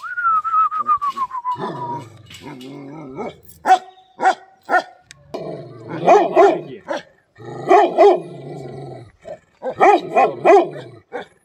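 Bhotiya dog, a Himalayan mastiff-type guard dog, barking deeply in three bursts of several barks each, about two seconds apart. A high whine falling in pitch comes before the barking.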